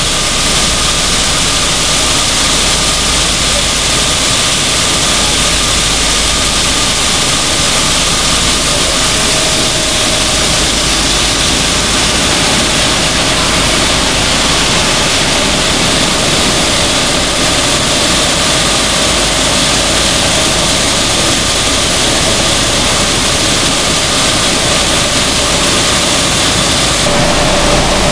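Sunflower seed hulling machine running: a loud, even mechanical whir with a faint steady hum in it. The sound shifts slightly about a second before the end.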